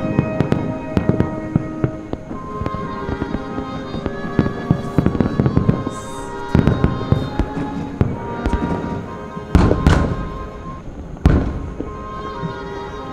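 Aerial fireworks bursting in a rapid string of bangs and crackles, the heaviest about ten seconds in and another sharp one a second later. Steady orchestral-style music from the broadcast soundtrack plays underneath.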